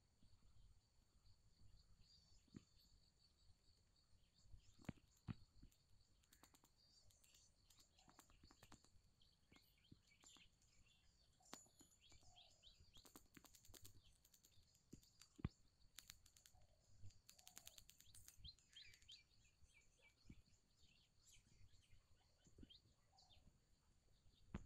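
Near silence: faint outdoor ambience with distant birds chirping now and then, a faint steady high hiss, and scattered light clicks.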